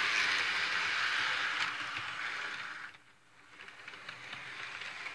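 A Bachmann HO scale model train running along the track with a steady whirring rattle and faint clicks. About three seconds in, the sound drops away sharply, then returns fainter.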